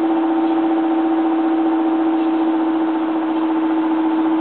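Steady machine hum at one constant, mid-low pitch with overtones, unchanging throughout.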